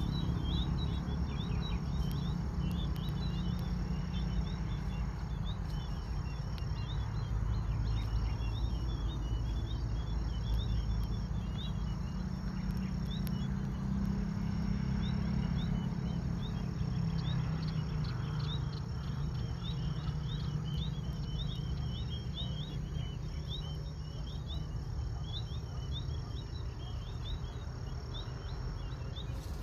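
Outdoor nature ambience. Insects trill in regular on-off bursts of about a second and a half, with many quick high chirps, over a low steady rumble.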